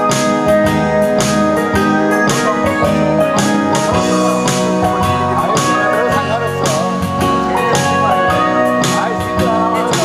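Instrumental blues backing music with a steady beat and a lead line that bends and wavers in pitch, louder about halfway through.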